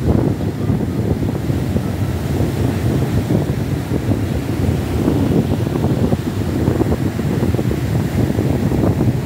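Sea waves breaking and washing up a sandy beach, with a steady low rumble of wind on the microphone.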